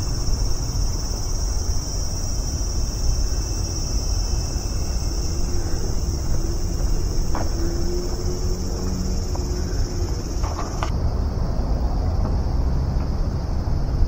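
Cicadas droning steadily in the trees, a continuous high buzz that shifts slightly lower about eleven seconds in, over a low steady rumble.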